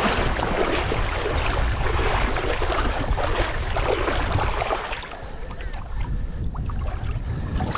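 Water splashing and sloshing as a large jack crevalle is held by the mouth and walked through shallow water to revive it, pushing water over its gills before release. The splashing is busiest for about five seconds, then eases as the fish swims off.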